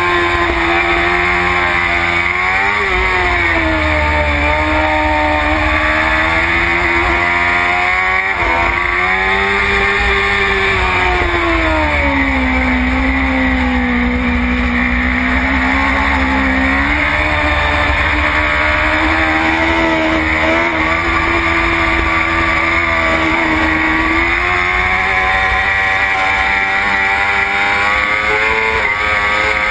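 BMW S1000RR superstock's inline-four engine at racing speed, heard from on the bike with wind rush. The engine pitch rises and falls with the throttle, breaks sharply at gear changes a few times, and holds low through a long corner in the middle before climbing again.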